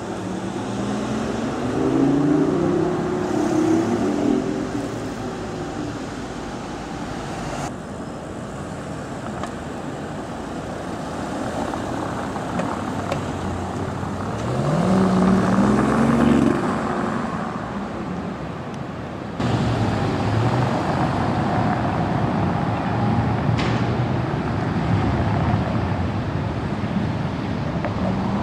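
BMW i8 hybrid sports car accelerating away, its turbocharged three-cylinder petrol engine climbing in pitch, loudest about two seconds and fifteen seconds in, with road traffic running between.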